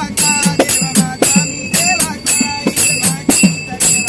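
A group of men singing a Marathi bhajan in chorus, keeping time with hand claps and jingling metal percussion at about three beats a second.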